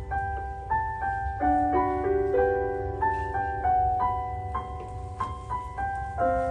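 Piano being played: a slow, gentle melody of struck notes over held chords, each note fading after it is struck, with a steady low hum underneath.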